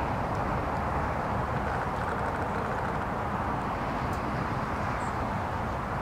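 Steady hum of distant road traffic, even throughout, with a faint high bird chip about five seconds in.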